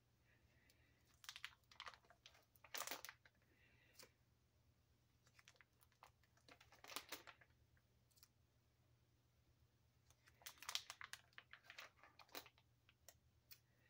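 Plastic nine-pocket binder sleeves crinkling and crackling as the pages of a ring binder are turned and handled, in several short spells of faint crackles with quiet in between.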